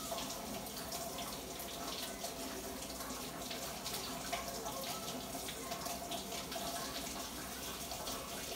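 Water running from a sink tap, a steady rushing without a break, with a faint steady hum underneath.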